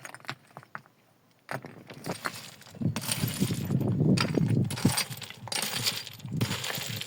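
Stones clinking and grinding against each other as rocks are handled and stacked. There are a few separate knocks at first, then a dense, louder rattling scrape from about a second and a half in.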